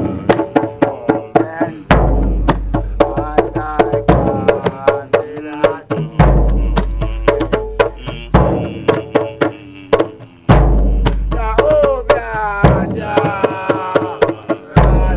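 Rasta Nyabinghi drumming: a large bass drum sounds a deep booming stroke about every four seconds, while a small hand drum plays quick, sharp strokes in between.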